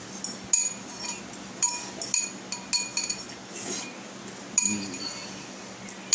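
Metal fork clinking and scraping against a ceramic bowl as the last noodles are scooped out: about five sharp clinks with a short bright ring, at uneven intervals.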